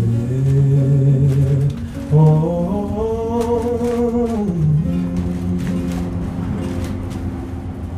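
A man singing long, held notes with an acoustic guitar accompanying. The vocal line climbs through the middle and falls back about five seconds in.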